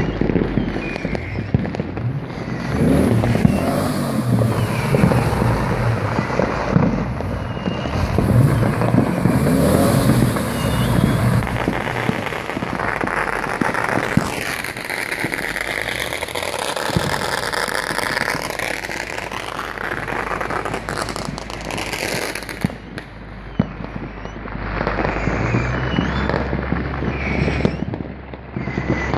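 Aerial fireworks going off continuously, a dense run of overlapping bangs and crackling, with whistles gliding in pitch now and then.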